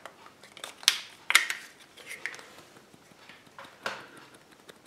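A few sharp cracks and clicks as a Kinder Surprise chocolate egg is broken open by hand and its yellow plastic capsule taken out, quiet between.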